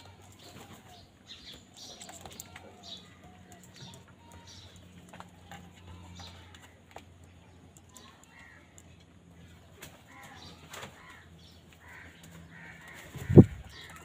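House crows jostling over food in a plastic bowl: wings flapping, beaks and feet tapping in many short clicks, with a few soft calls. A single loud thump comes near the end.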